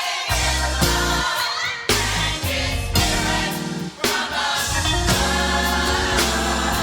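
A youth choir singing a gospel song over a band with bass and drums.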